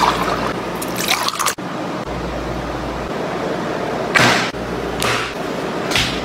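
Milk poured from a bottle into a drinking glass. A couple of short, sharp noises follow about four and five seconds in.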